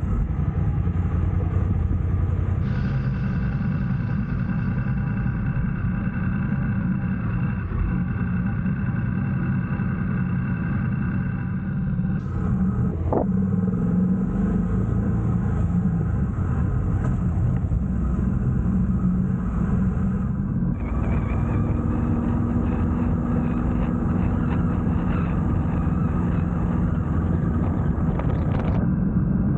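A motor vehicle's engine running steadily while driving, with road and wind noise. The sound changes abruptly a few times.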